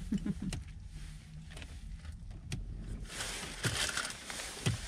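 Chewing and mouth sounds of a bite of sandwich being eaten, with scattered small clicks, then a rustling of a nylon jacket sleeve from about three seconds in, over a low steady hum.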